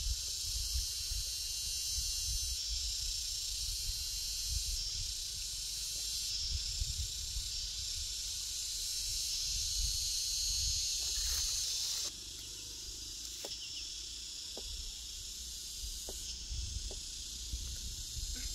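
Insects in the field grass making a steady, high, hissing chorus that drops off abruptly about twelve seconds in, over a low flickering rumble. A few faint clicks follow near the end.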